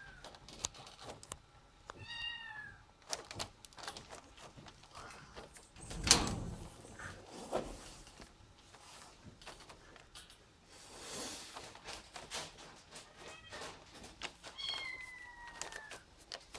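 Domestic cat meowing three times: once about two seconds in, then a faint short meow and a longer meow falling in pitch near the end. A thump sounds about six seconds in, amid small handling clicks and rustles.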